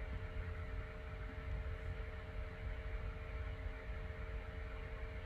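Steady background room tone: a low rumble with a faint constant hum and hiss, with no distinct sounds.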